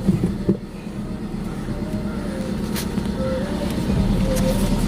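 A vehicle's engine running steadily with a low rumble, getting louder near the end as the vehicle backs up.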